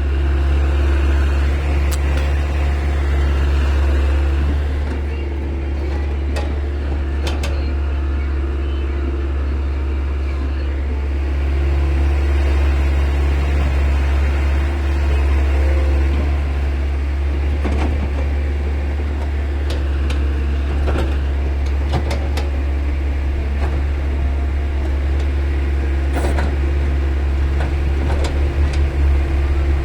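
Heavy diesel machinery engine running at a steady working speed with a low drone, swelling slightly now and then, with scattered short knocks and clatters.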